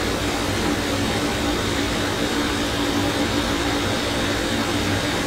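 Steady background hum and hiss with faint constant tones and no separate events.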